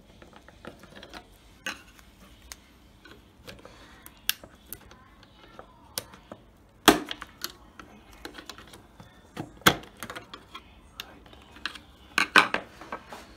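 Scattered small clicks and taps of metal terminals and plastic as a BMW X5 junction box circuit board is pressed, leg by leg, back into the grooves of its plastic housing. A few louder, sharper clicks come about seven seconds in, near ten seconds and again near the end.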